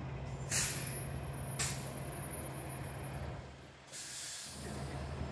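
Low steady hum of an idling vehicle engine, with two short bursts of hiss about half a second and a second and a half in, and a longer hiss about four seconds in.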